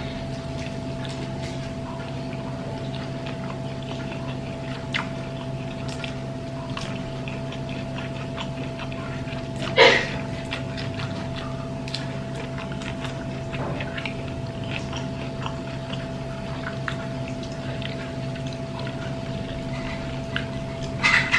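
Quiet lunch-eating sounds: small scattered clicks and taps, with one louder clink about ten seconds in, over a steady electrical hum.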